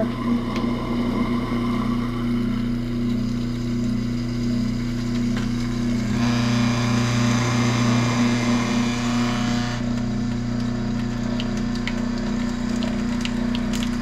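Garbage disposal motor running with a steady hum while a thin stream of tap water runs into the drain. The hiss of the water grows louder for a few seconds in the middle.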